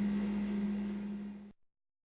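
A steady low hum, cut off abruptly about one and a half seconds in, followed by dead silence.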